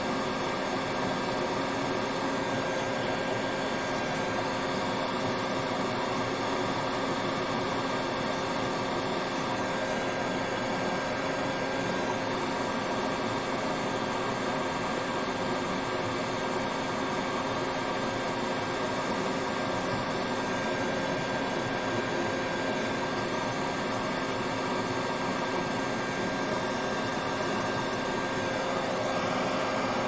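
Custom-made solder fume extractor's fan running with a steady whir and a constant hum.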